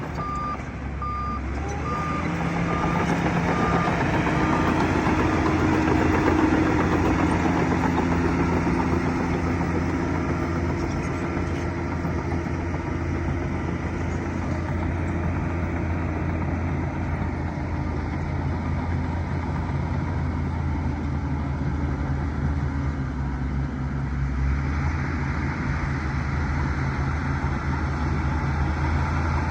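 Bulldozer diesel engine running steadily under load, with its reversing alarm beeping evenly for the first few seconds.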